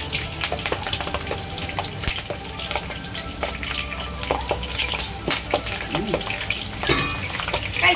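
Whole green chilies deep-frying in hot oil in a stainless steel wok, sizzling steadily with frequent sharp pops and spits of spattering oil, a denser burst of pops about seven seconds in. A wire mesh skimmer stirs through the oil.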